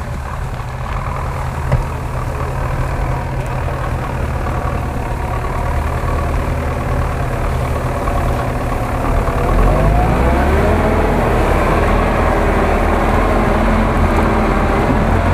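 GAZ-66 truck engine running as the truck drives through grass, growing louder as it comes closer. From about ten seconds in it is louder still, with a whine that rises and falls in pitch.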